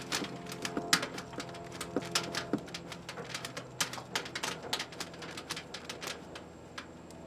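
Taped bundle of insulated 10-gauge wires being pushed by gloved hands through flexible liquid-tight conduit: a run of irregular small clicks and scrapes, thinning out near the end.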